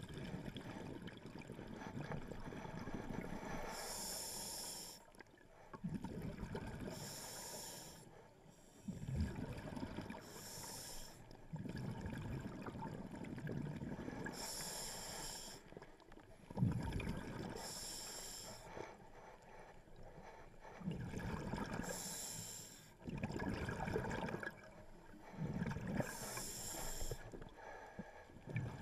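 Scuba diver breathing through a regulator underwater: a short hissing inhale about every three to four seconds, alternating with longer, lower rumbles of exhaled bubbles.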